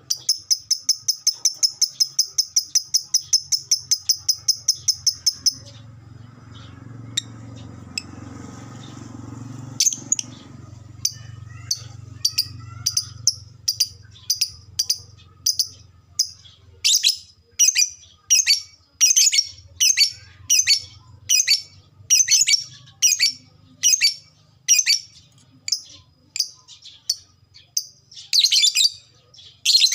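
Lovebird ngekek: a long, fast chattering trill of about seven high calls a second lasting some five and a half seconds. After a lull come separate sharp high chirps, which quicken to nearly two a second from about halfway through.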